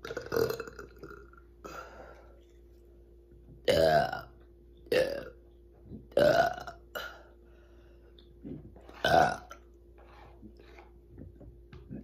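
A woman burping on command: a string of separate deep burps, with the biggest about four, five, six and nine seconds in and smaller ones between.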